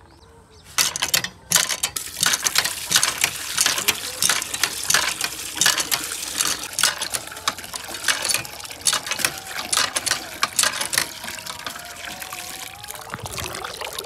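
Water gushing from a hand-pump spout and splashing into a bucket as it fills, starting about a second in.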